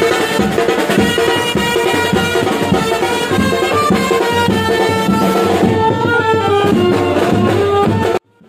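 Street brass band playing: trumpets and clarinet carry a melody over fast, dense drumming on large mallet-struck drums. The sound cuts off abruptly about eight seconds in.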